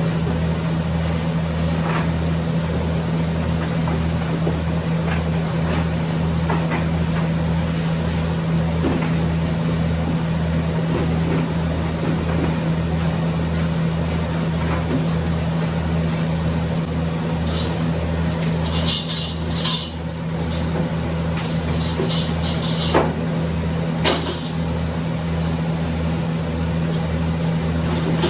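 Dairy milk-house machinery running: a steady hum with a low throb pulsing about twice a second, with a few knocks and some short hissing bursts about two-thirds of the way through.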